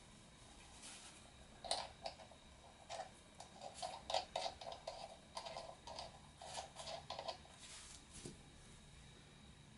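Faint, quick clicking and rattling of small plastic and metal parts, thickest in a run from about three to seven seconds in, as a quadcopter propeller is handled and its nut worked onto the motor shaft.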